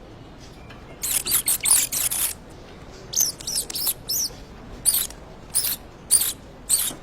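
A series of short, high-pitched squeaks, starting about a second in and repeating one or two times a second, some rising and falling in pitch.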